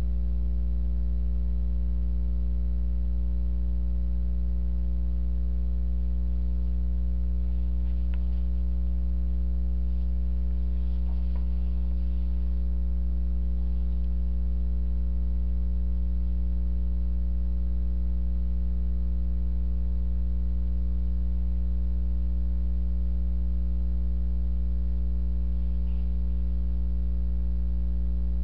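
Steady electrical mains hum, a low buzz with a stack of overtones, unchanging throughout, with a couple of faint clicks about 8 and 11 seconds in.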